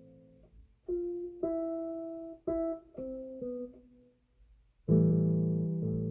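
Electronic keyboard played with a piano sound. A slow, sparse line of single notes comes first, then a short pause, then a loud full chord struck near the end and held.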